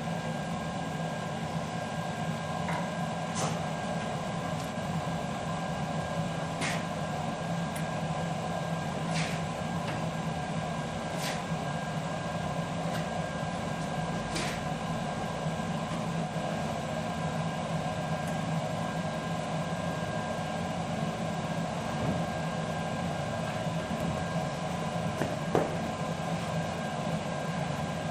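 A steady mechanical hum with a low drone and a few higher steady tones, with faint ticks every few seconds.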